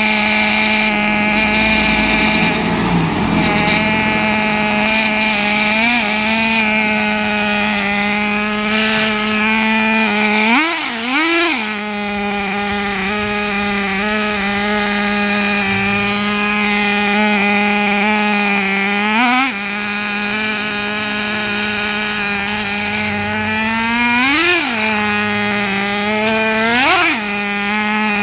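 Traxxas TRX 3.3 two-stroke nitro engine of a Nitro 4-Tec 3.3 RC car running at a steady high-pitched drone, with brief throttle blips that push the pitch up and back: about six seconds in, twice in quick succession around eleven seconds, and again near nineteen, twenty-four and twenty-seven seconds.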